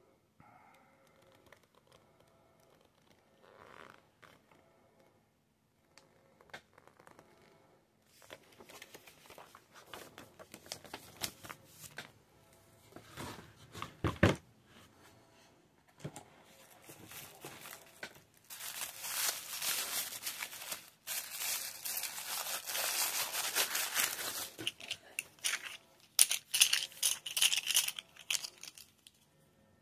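Cardboard game box and its parts being handled, with one knock about halfway through. This is followed by a long run of paper crinkling and tearing as a tissue-wrapped bundle of plastic coins is unwrapped.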